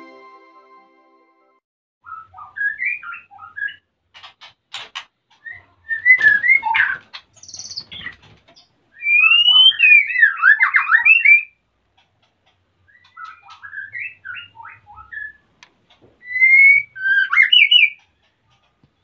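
White-rumped shama singing in three bouts of rapid, varied whistled phrases with rising and falling notes, mixed with a few short clicking notes, the loudest bout about halfway through. It is the song of a male in breeding condition, courting the female.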